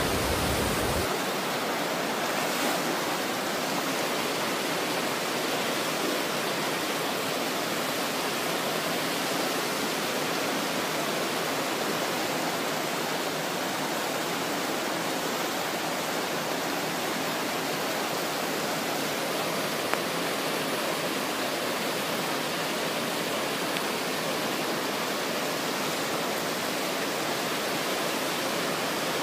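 Steady rushing of a shallow mountain river running over rocks.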